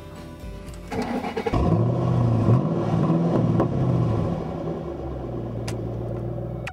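A Ford Mustang's engine starting about a second in, revved up and down a couple of times, then settling to a steady idle.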